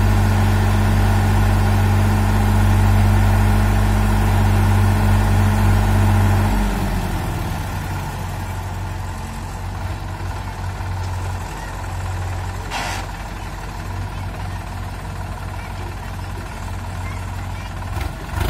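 Diesel engines of a Hitachi excavator and a Sonalika DI 47 RX tractor running while the excavator loads soil into the tractor's trolley. A steady engine hum falls away about six seconds in to a lower, uneven idle.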